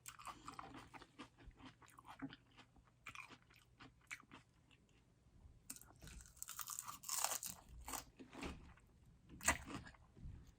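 Close-miked chewing of a mouthful of crunchy lettuce salad: scattered crackly crunches, a pause about four seconds in, then a denser run of crunching bites.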